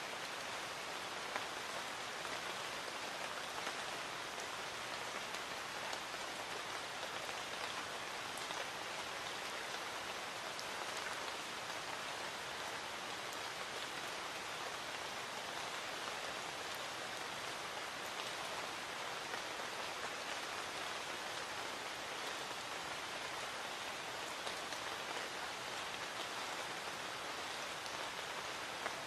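Light rain falling steadily: a soft, even patter with a few sharper drops here and there.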